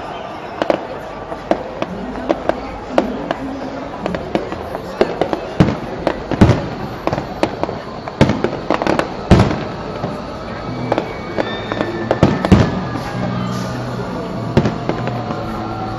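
Fireworks display: a dense run of bangs and crackles, the loudest about six, nine and twelve seconds in. Music and voices run underneath.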